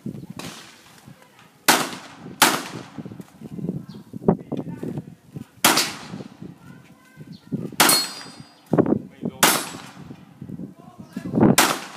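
Glock pistol fired one shot at a time, six shots in all, spaced about one to two seconds apart, each with a short ringing tail.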